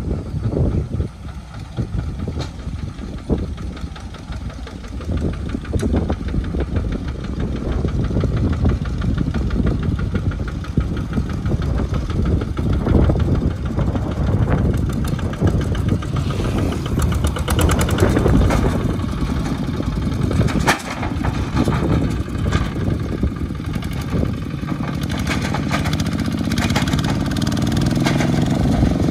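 Single-cylinder diesel engines of two-wheel walking tractors running steadily with a fast, even firing beat as they pull trailers. Near the end one engine's note rises in pitch.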